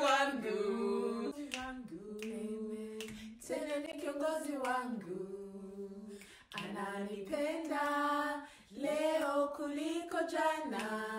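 Several women singing together without accompaniment, in phrases of held notes with short breaks between them.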